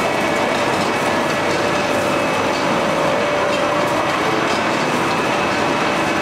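Vertical ring-die pellet mill running: a loud, steady mechanical clatter with a faint steady tone running through it.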